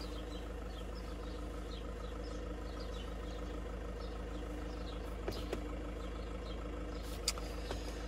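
A steady low mechanical hum, engine-like, with a few faint clicks in the second half.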